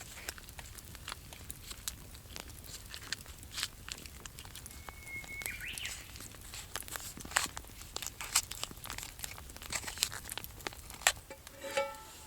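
Irregular sharp crackles and clicks throughout, with a brief high whistle-like note about five seconds in.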